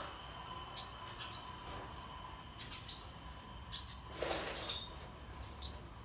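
A small bird giving three short, sharp chirps that sweep up in pitch: about a second in, near four seconds, and near the end. A brief rustling hiss follows the second chirp.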